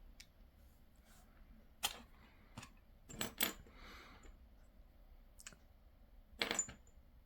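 Small metal padlock parts of a Kasp aluminium padlock clicking and tapping as they are handled and fitted back together: a handful of separate sharp clicks, some in quick pairs.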